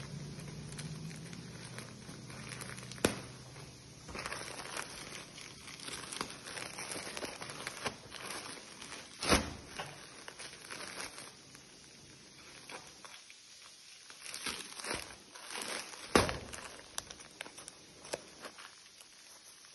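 Scissors cutting into a plastic courier mailer, the plastic crinkling and rustling as it is handled and snipped, with three sharp knocks spread through.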